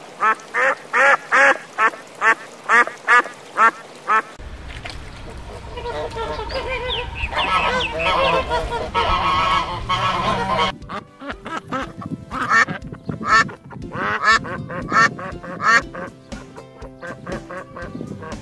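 Ducks and geese calling: a fast run of quacks, about two or three a second, then from about four seconds in a dense overlapping flock chatter over a low rumble that cuts off about eleven seconds in, followed by scattered separate calls.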